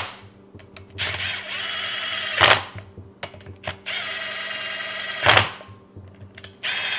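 Cordless drill driving a 12 mm socket in short runs to thread fasteners on, not to tighten them. Each run is about a second and a half of steady motor whine ending in a brief loud burst; two runs, and a third starts near the end.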